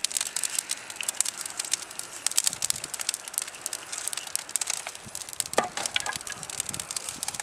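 Old wooden furniture burning in a large open fire, crackling steadily with many sharp pops and snaps over a hiss of flame.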